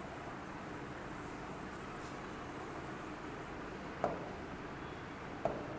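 Steady room hiss with two short taps, about four seconds in and again near the end: a finger or stylus tapping the glass of an interactive touchscreen board.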